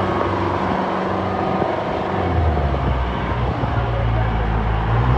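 Truck engine running as it drives along a flooded street, its note dropping about two seconds in and rising again near the end, over a steady hiss.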